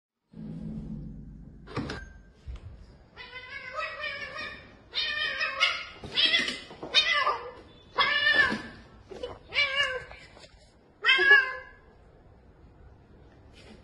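A cat meowing over and over: about ten loud, drawn-out meows whose pitch bends up and down, starting about three seconds in and stopping a couple of seconds before the end.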